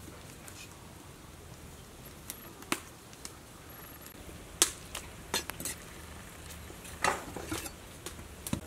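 Occasional short, sharp knocks and clicks of kitchen utensils, a few seconds apart, with a small cluster near the end, over a faint steady low hum.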